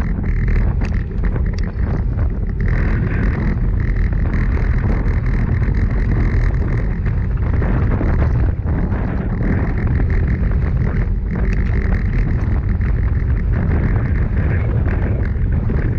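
Loud, steady wind rumble buffeting the microphone of a handlebar-mounted action camera on a road bike pedalled hard at about 40 km/h, mixed with the hum of the tyres on asphalt.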